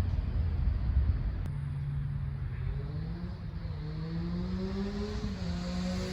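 Triumph Street Triple 765 RS's three-cylinder engine pulling under way, its note rising slowly, over low wind rumble that eases about a second and a half in.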